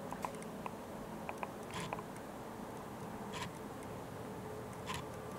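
Quiet room tone with scattered small clicks and three brief crunching scuffs, about a second and a half apart.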